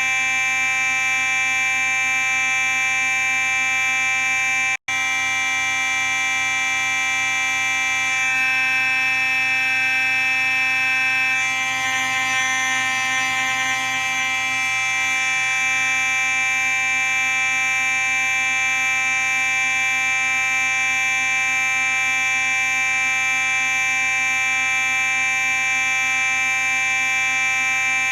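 Simplex 4903-9838 fire alarm sounding continuously: a loud, steady buzzing tone. It cuts out for an instant about five seconds in.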